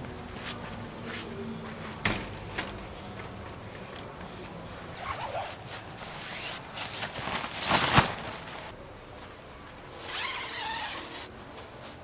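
A steady, high-pitched chorus of summer insects, with a few knocks and clatters from camping gear being handled, the sharpest about eight seconds in. The insect sound cuts off suddenly about nine seconds in, and a burst of nylon tent fabric rustling follows.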